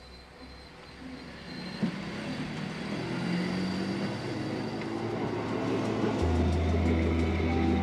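Passenger train moving through a station platform, the rumble of the carriages building steadily louder, with a sharp click near the start and another about two seconds in. A deep steady tone comes in about six seconds in.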